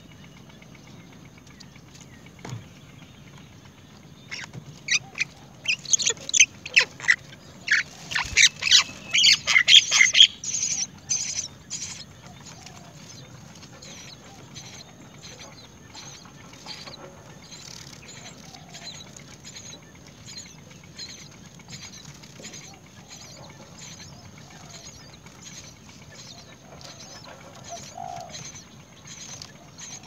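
Nestlings begging for food: a loud burst of rapid, shrill chirps for several seconds, then fainter chirps keep repeating while the parent feeds them.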